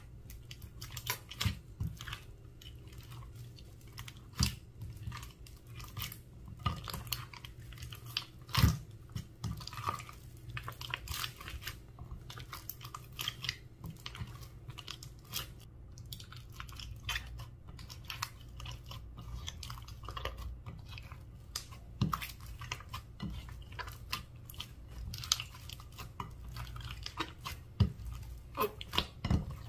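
Clear slime being kneaded and pressed by hand, with irregular sticky clicks and pops, over a steady low hum.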